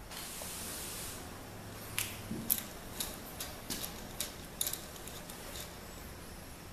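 Light, irregular metallic clicks, about a dozen over three or four seconds, as a small hand tool works the adjusting nut of a roller rocker arm on a big-block Chevy cylinder head to set valve lash.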